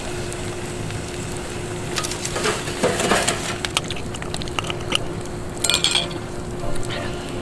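Green glass soju bottle's metal screw cap twisted open with a crunchy crackle about three seconds in, then sharp glassy clinks of the bottle and cup around six seconds in. Light crackles of the campfire through the rest.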